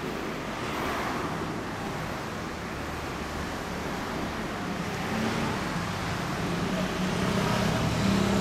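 Kawasaki ZRX400-II's inline-four idling steadily through a BEET aftermarket exhaust, the low note growing a little louder over the last few seconds.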